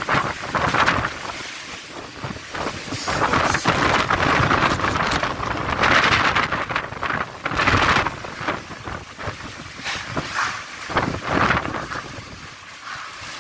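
Tropical-storm wind gusting hard and buffeting the microphone, in surges that rise and fall every second or two.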